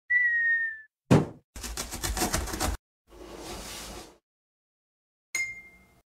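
Cartoon sound effects of an animated intro, in turn: a short whistle that falls slightly in pitch, a sharp thump, about a second of fast rattling, a soft whoosh, and near the end a brief ding that dies away.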